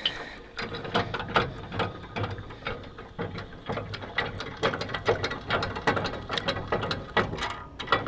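Bulldog jack stand on a baler tongue being cranked by hand, its gears clicking in a steady run of about three or four clicks a second.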